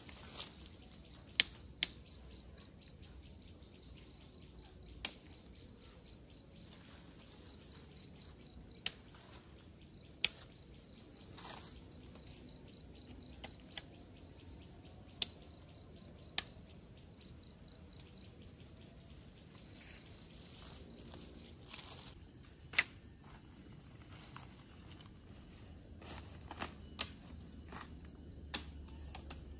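Insects chirping in a high-pitched repeating pulse, about four chirps a second, in trains. Sharp clicks come now and then, more often near the end.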